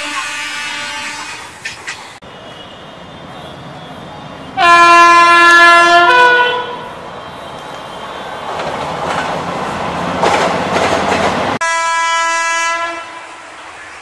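Indian Railways locomotive horns heard in a run of short clips. A horn sounds for the first second and a half, and a loud two-tone horn blast comes about four and a half seconds in, stepping up in pitch before it stops. A train passes with its wheels clattering over the rails from about nine to eleven seconds, and another short horn sounds about twelve seconds in.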